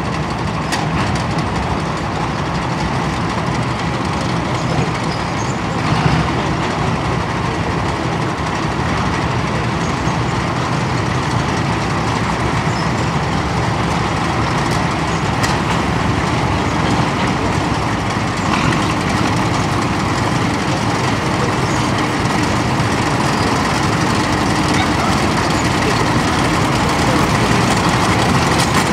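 Column of military vehicles, tracked armoured vehicles led by a jeep, driving past with engines running steadily, getting slightly louder near the end as they come close.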